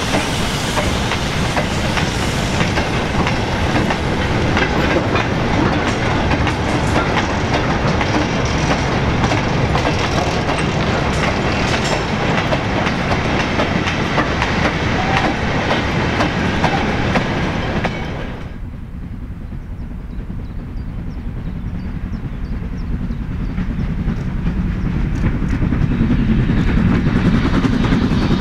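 Goods wagons of a steam-hauled freight train rolling past close by, their wheels clattering over the rail joints. Partway through this gives way abruptly to a quieter steam-hauled train of vans approaching, growing steadily louder.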